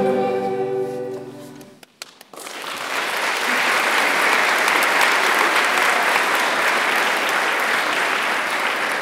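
Recorder ensemble's last held chord fading out, then after a brief pause an audience breaks into applause that carries on steadily.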